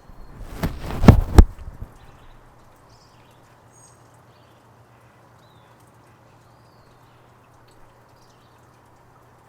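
Furry dead-cat windshield being pulled off a Rode VideoMicro shotgun mic: loud rustling and bumping against the mic for about a second and a half. It is followed by quiet outdoor ambience heard through the bare mic, with a steady low hum and a few faint high chirps.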